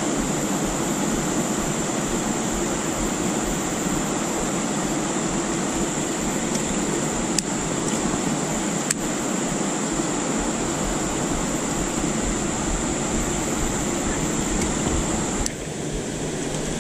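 Steady rush of a shallow river flowing over rocks, with a thin high-pitched hum over it and two sharp clicks around the middle. About a second before the end the sound drops and changes abruptly to a different stretch of running water.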